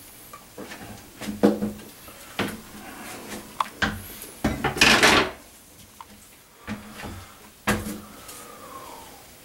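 Parts of a bathroom exhaust fan unit being handled and taken apart: irregular knocks and clunks of metal and plastic, with a longer scrape about five seconds in.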